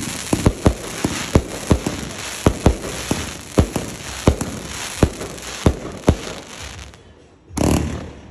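Clobbering Time 259 consumer firework cake firing: a rapid run of sharp bangs, about two or three a second, over a crackling hiss. The shots stop about six seconds in, and a loud burst of hiss follows shortly before the end.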